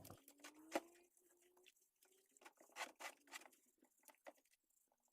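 Near silence, broken by a few faint, short scratchy clicks of a brush scrubbing the degreased cast-iron vise.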